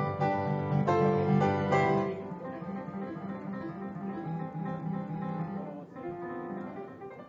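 Electronic keyboard played in quick runs of notes over chords, loud for about the first two seconds and then softer.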